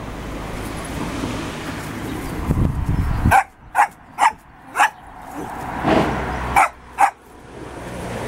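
Small dog barking: a series of about seven short, sharp barks that start a little over three seconds in, after a low rumble in the first few seconds.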